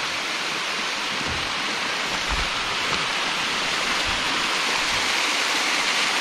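Small waterfall splashing down layered rock ledges into a creek: a steady rush of falling water that grows slightly louder.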